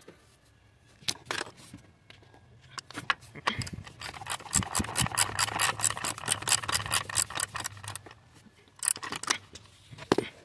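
Hand ratchet with an extension clicking rapidly, several clicks a second for about four seconds in the middle, as it is worked back and forth on a bolt at the top of a GMC Acadia's V6 engine during spark plug removal. A few separate clacks of parts being handled come before and after.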